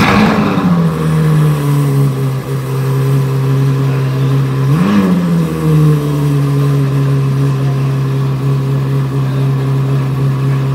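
Ferrari F12berlinetta's 6.3-litre V12 catching on start-up with a loud flare, dropping within about a second to a steady fast idle. About five seconds in there is one short throttle blip, after which it settles back to idle.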